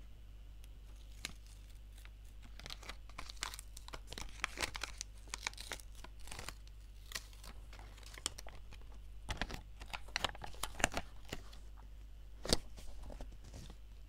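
A homemade paper sticker being peeled off its backing paper: irregular crackling and crinkling of paper and tape in two spells, with one sharper snap near the end.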